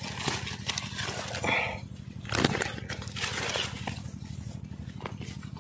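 Freshly caught fish being stowed in a bag: rustling and irregular knocks, with one sharper knock about halfway through, over a steady low hum.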